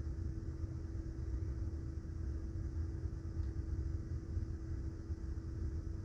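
Steady low rumble of a moving passenger train heard from inside the car, with a constant faint hum.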